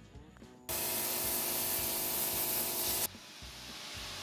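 Pressure washer spraying water onto an alligator skull: a loud, steady hiss of the jet with the machine's even hum, starting suddenly just under a second in and cutting off about three seconds in, then a quieter spray hiss that slowly builds.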